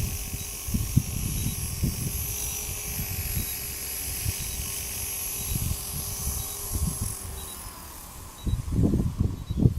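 Align T-REX 250 electric RC helicopter's motor and rotors whining steadily, dying away about three-quarters of the way through, while strong wind buffets the microphone with heavy low rumbling that gets louder near the end.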